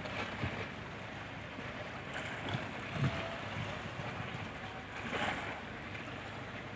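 Steady wind noise on the microphone over the even sound of a ship's engines and stirred harbour water as the ship KL Laksamana Malahayati moves astern out of its berth. A few faint short sounds come about half a second, three and five seconds in.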